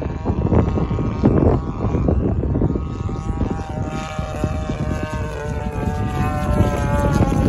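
The 35cc gas engine of an Ultra Stick RC airplane running in flight, its propeller tone coming through clearly from about three seconds in, the pitch dipping slightly and then rising. Heavy wind buffets the microphone.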